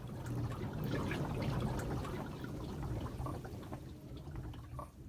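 Floodwater gurgling and trickling as it is forced into the walls of a flooded house. It is a steady bubbling with many small drips and a low hum beneath.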